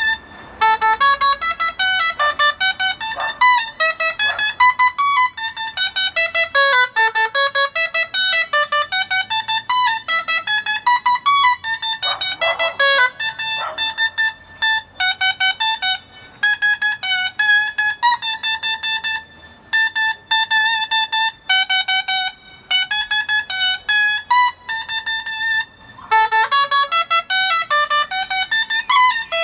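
Dolçaina, the Valencian double-reed shawm, played solo: a bright, nasal melody of quick separate notes with fast runs up and down and short breaks between phrases.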